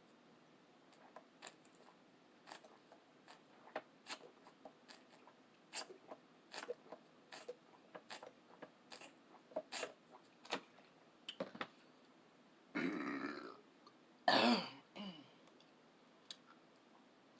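Close-up wet mouth clicks and smacks of chewing food, then two burps near the end, the second louder.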